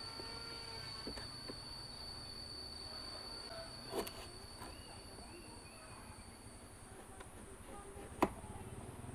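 Insects, cricket-like, singing in a steady high-pitched drone, with two sharp knocks, one about four seconds in and a louder one near the end.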